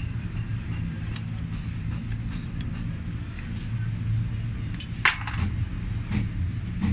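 Small metallic clinks as spanners and fuel-line fittings are handled on a tractor's CAV diesel injection pump, with one sharp clink about five seconds in, over a steady low hum.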